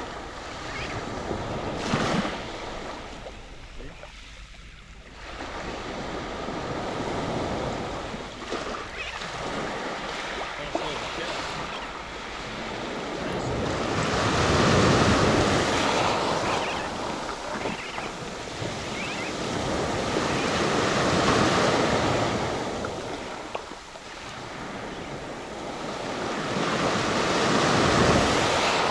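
Small waves washing up onto a sandy, shelly beach and draining back, in slow surges every several seconds; the biggest come about halfway through and near the end.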